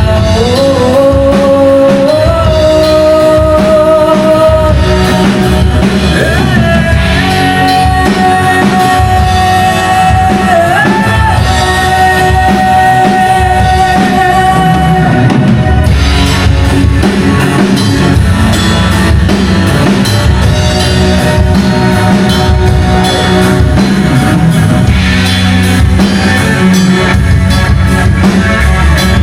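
Rock music with singing: long held sung notes that slide up to a new pitch now and then, over drum kit and guitar.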